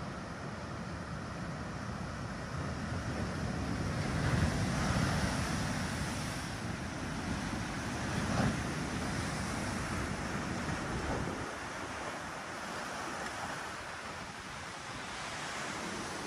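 Tsunami surge water rushing over a seawall and through a flooded yard, a steady wash of moving water with wind buffeting the microphone. It swells about four seconds in and again briefly near eight seconds, and the low rumble thins out after about eleven seconds.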